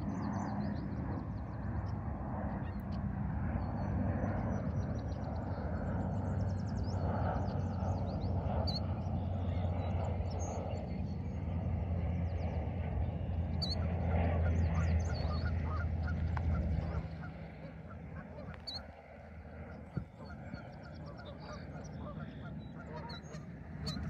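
Waterfowl calling repeatedly, with small songbirds chirping high above, over a low steady hum that drops away about 17 seconds in.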